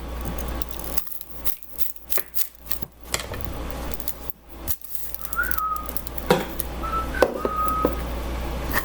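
Light clicks and knocks of food and kitchen items being handled on a counter, with a few short whistled notes about halfway through and near the end.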